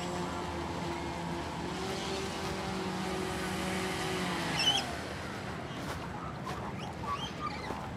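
Electric motors and propellers of a large four-engine Hercules model airplane running with a steady drone, which drops in pitch and fades about halfway through. Short high bird chirps follow, one loud one just as the drone fades.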